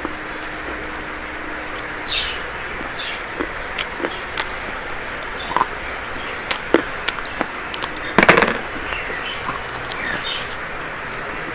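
Dry chalk crunching and crumbling: scattered sharp cracks over a steady hiss, with the loudest, densest crunch about eight seconds in.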